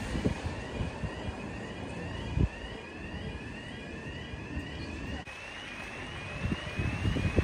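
Storm wind rumbling and buffeting the microphone, with a few gusty thumps. Through it, faintly, an electronic alarm repeats a short rising two-tone chirp about twice a second.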